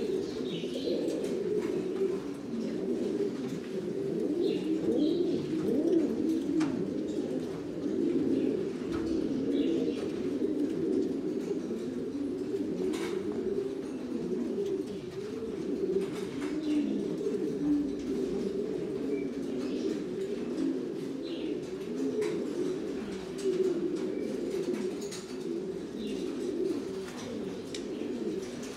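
A loftful of Buchon Gaditano pouter pigeons cooing at once, a continuous tangle of overlapping low coos with no break. A few sharp clicks stand out now and then.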